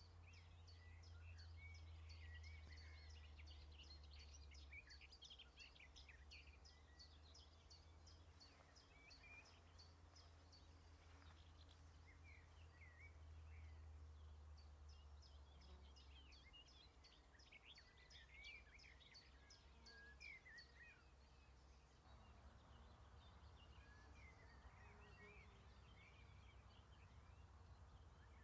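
Faint outdoor ambience: many distant small birds chirping and calling, some in quick runs of high ticks, over a steady low rumble.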